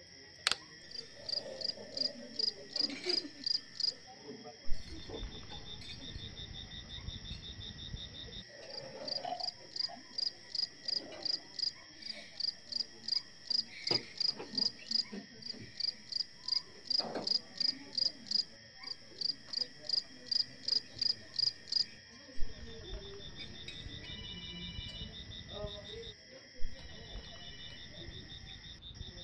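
Night insects, crickets among them, chirping: a steady high trill under a louder pulsed chirp that repeats about three times a second, pausing briefly a few times.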